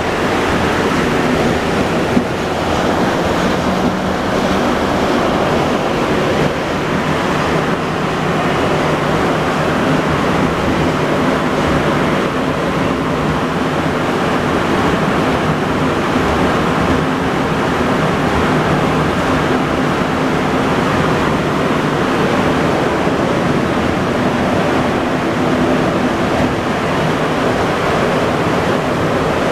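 Montreal Metro MR-73 car running steadily on its rubber tyres, heard from inside the car: a constant loud rush with a steady low hum beneath it.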